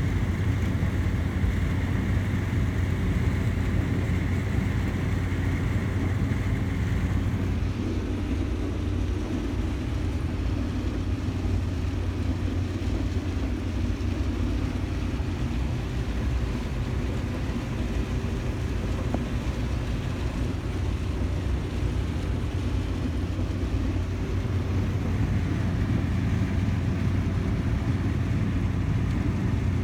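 Combine harvester running steadily while harvesting corn: a constant low engine and machinery drone. A fainter higher whine drops away about a quarter of the way in and comes back near the end.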